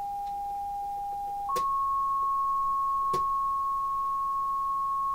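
Pure, steady synthesizer tone from a Hertz Donut oscillator module, its pitch set by the QAO arpeggiator. The tone jumps up once to a higher note about a second and a half in, with a sharp click at the jump and another click a couple of seconds later.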